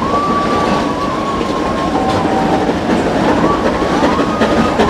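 Nilgiri Mountain Railway toy train running on its track, heard from aboard: a steady rumble and rattle of the carriages, with a thin wavering squeal that slides lower about two seconds in and comes back in short arcs near the end.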